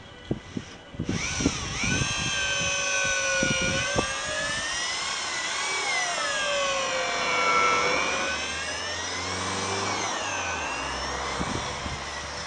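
An electric power tool's motor starts about a second in and runs for about eleven seconds. Its pitch slides down and back up as its speed changes under the load. A few knocks come before it starts.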